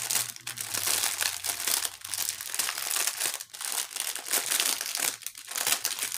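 Clear plastic packaging crinkling loudly as hands turn and squeeze a sleeve of bagged diamond-painting drills. The crackling is continuous, with a couple of short lulls.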